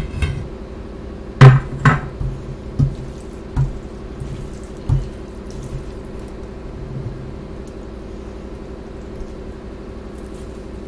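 A string of sharp clinks and knocks of glass and steel dishes being handled and set down on the table, the loudest about a second and a half in, then only a steady low hum.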